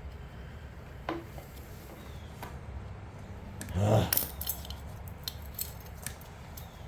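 Small metal tools and parts clinking and clicking during hand work on a string trimmer's fuel system, with a louder, brief clatter about four seconds in.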